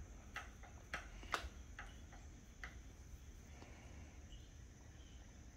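Faint irregular clicking from hand-cranking the Y-axis handwheel of a Grizzly G0755 mill-drill to move the table. The clicks come a few times a second, thin out, and stop a little under three seconds in.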